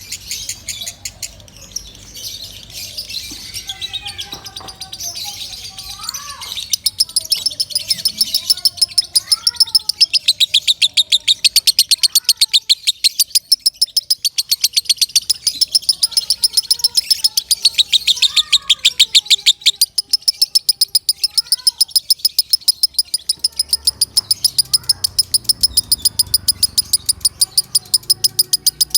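Lovebird singing a long, loud chatter of rapid, evenly repeated high chirps, about ten a second, that settles into an unbroken run a few seconds in. Softer sliding calls sound beneath it.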